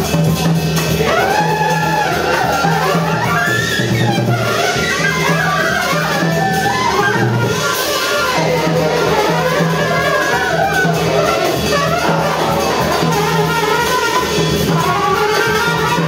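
Small jazz ensemble improvising: flute, saxophone and trumpet lines winding over one another above drums, with a low note repeated in short pulses underneath.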